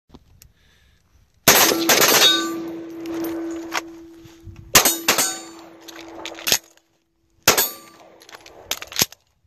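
A fast string of .308 rifle shots from an FN SCAR 17, then two quicker strings of pistol shots from a Smith & Wesson M&P. Steel targets are hit and ring with a steady tone that lingers and fades after each string.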